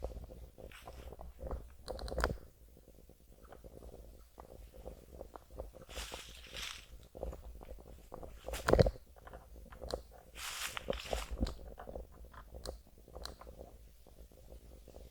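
Dry autumn leaves and twigs crunching and rustling in irregular bursts, with scattered clicks and one sharp knock about nine seconds in.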